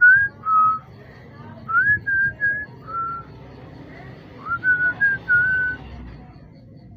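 A person whistling a tune in three short phrases of a few held notes each, with pauses between them.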